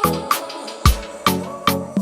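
Background music with a steady percussive beat over bass and instrument tones.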